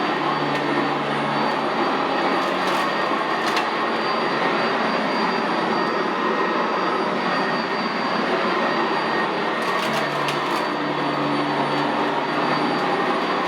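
Sanitaire SC679J commercial vacuum running steadily as it is pushed over carpet, with a faint high whine over the motor and brush noise. A few brief clicks come about three seconds in and again near ten seconds.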